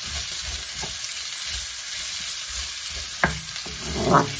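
Sliced onion and minced ginger sizzling in hot oil in a wok, a steady hiss, while a wooden spoon stirs and scrapes them around the pan, with a couple of louder strokes near the end.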